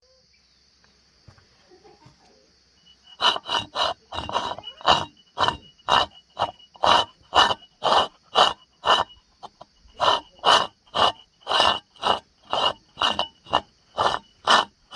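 Old coffee mill grinding, a rhythmic grating rasp that repeats about twice a second, starting about three seconds in.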